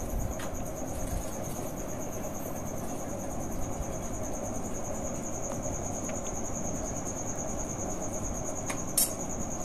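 A continuous high-pitched, slightly pulsing trill over a low background hum, with one sharp click near the end.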